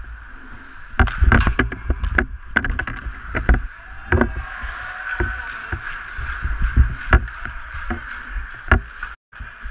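Ice hockey skates scraping and carving on the ice, with sharp clacks of sticks and puck, heard close up through a goalie's mask-mounted camera, which adds a low rumble of movement. A steady high hum sits underneath, and the sound cuts out for a moment near the end.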